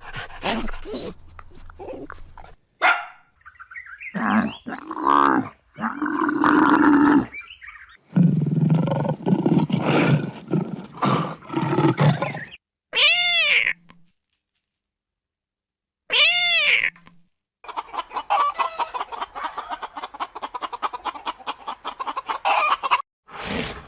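A series of different animal calls, one after another, each short, with a brief silent gap in the middle and a long rapidly pulsing call near the end.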